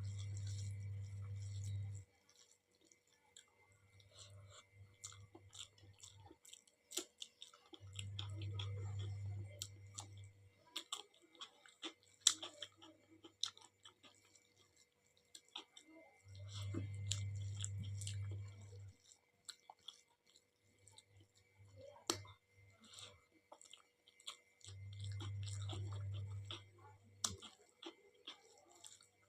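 Close-miked chewing of dal and rice, with many small wet mouth clicks and smacks. Under it, a low hum comes and goes in spells of about two seconds, roughly every four seconds.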